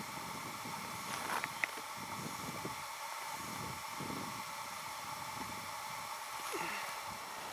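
Faint outdoor ambience: a steady hiss with light wind rumbling on the microphone, and a couple of small clicks about a second and a half in.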